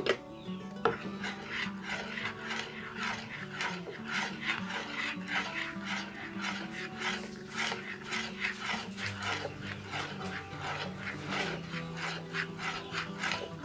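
Cake batter stirred by hand in a glass bowl, flour being worked into the wet mix with rhythmic scraping strokes, about three a second.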